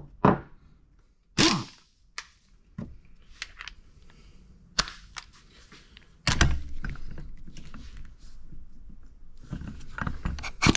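Sharp metal clinks and knocks as a socket and tools are set on a steel-and-aluminium clutch puller. Then, in the latter part, an impact wrench drives the puller's center bolt in until snug.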